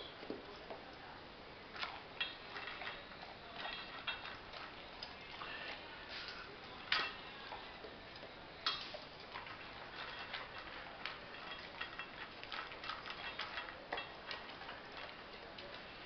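A dog eating dry kibble and macaroni from a stainless steel bowl: irregular crunching and clicking as it chews, with two sharper clicks about seven and nine seconds in.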